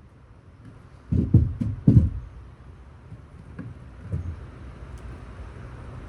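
A quick run of heavy knocks about a second in, then two softer knocks, over a low rumble.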